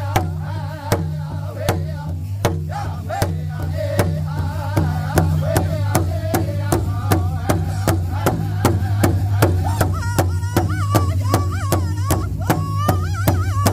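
Powwow drum group singing around a large shared drum, struck in unison with drumsticks in a steady beat. The voices are high and wavering and grow stronger for the last few seconds.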